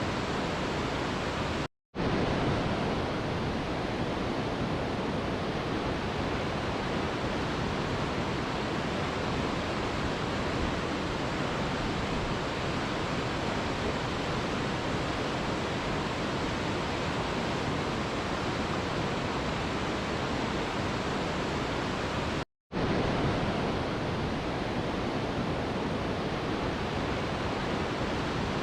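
Steady, even rushing of a waterfall, cutting out for a split second about two seconds in and again about three quarters of the way through.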